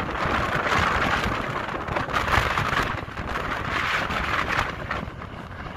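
Jet engine roar of a Boeing 737 airliner on landing approach overhead, gear down, a steady rushing noise that eases off near the end. Wind buffets the microphone throughout.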